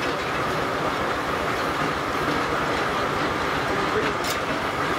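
Steam-engine-driven sawmill with a large circular saw blade (about 54 inches) running: a steady, dense mechanical racket with a faint constant whine through it, and a short sharp click about four seconds in.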